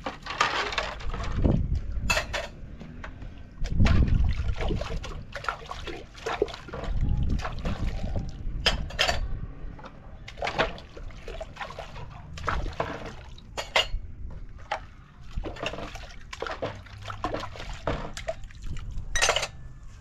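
Water sloshing and trickling, with many short knocks and clicks scattered throughout and a few heavier low rumbles in the first half.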